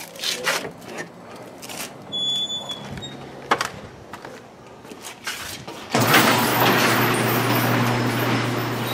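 Scattered light knocks and handling noises, then a loud, steady mechanical noise starts abruptly about six seconds in: a low hum under a hiss.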